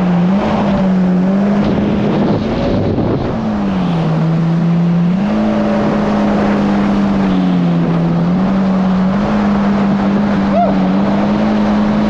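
Supercharged four-cylinder engine of a Yamaha GP1800R SVHO jet ski running under way at a steady pitch, heard from on board over the rush of water and wind. The pitch dips briefly twice, about four and eight seconds in, as the throttle eases.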